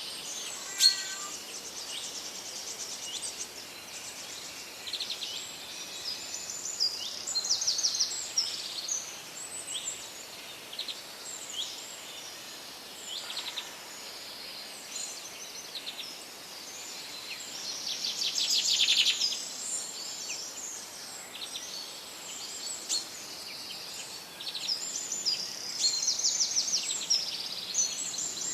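Several forest songbirds singing and calling over the steady rush of a running stream, with one loud, rapid trill about two-thirds of the way through.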